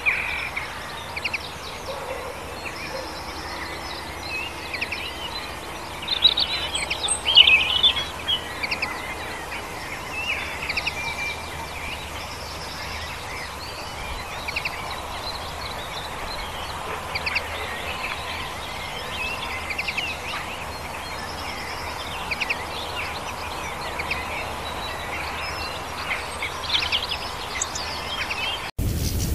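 Common linnet singing: a twittering run of short chirps and trills, busiest about six to eight seconds in, over a steady background hiss.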